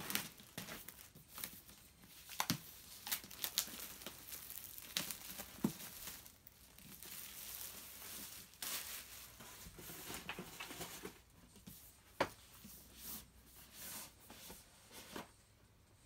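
Clear plastic packaging crinkling and tearing as it is handled and pulled off, with scattered sharp clicks and knocks from the cardboard box being handled.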